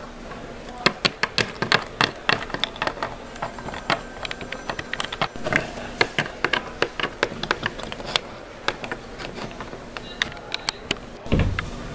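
Hard plastic Littlest Pet Shop figurines hopped along a tabletop by hand, making a rapid, irregular run of light clicks and taps, with a dull thump near the end.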